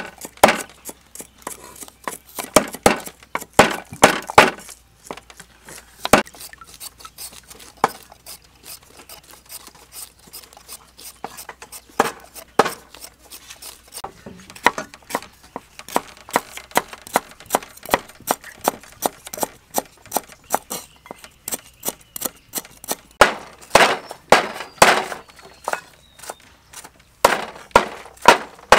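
Kitchen knives and cleavers knocking and chopping on wooden chopping blocks and clinking on a plate: an irregular run of sharp clicks and knocks, loudest near the start and over the last few seconds.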